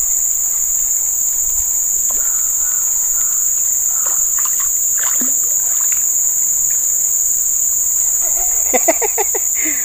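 Steady high-pitched insect chorus buzzing without a break. A few faint ticks and short voice sounds come in near the end.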